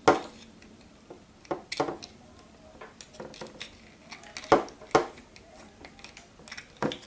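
Scattered clicks and knocks as the cover of a small inline LED dimmer is handled and fitted back over its circuit board, with about eight sharp taps, the loudest around four and a half seconds in.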